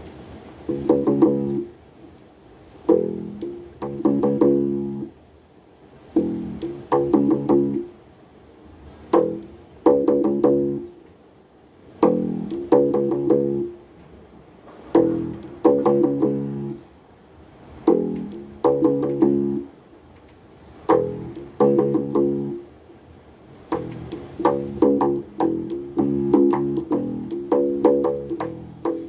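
Bass guitar played solo: a short riff of plucked notes and chords, repeated about every three seconds, each note with a sharp attack. Near the end the phrases come closer together and busier.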